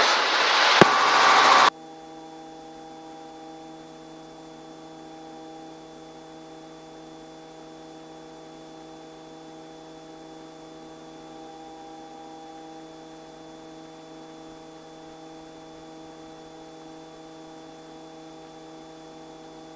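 Robinson R44 helicopter drone heard faintly through the headset intercom, a steady hum of several fixed pitches. In the first second and a half a burst of radio noise cuts off suddenly.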